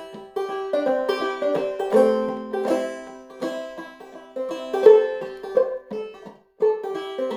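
Five-string banjo played gently in clawhammer style, tuned to open C (gCGCE), picking out an old-time fiddle tune as a steady run of plucked, ringing notes with a very short break about six and a half seconds in.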